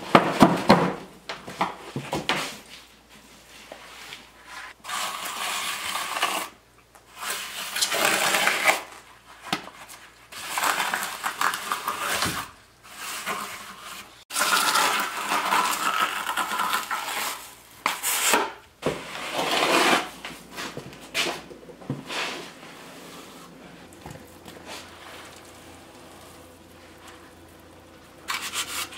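Wet concrete being scooped with a shovel from a plastic mixing tub, dropped into a countertop form and worked with a hand trowel: irregular bursts of scraping and sloppy plops with short pauses between.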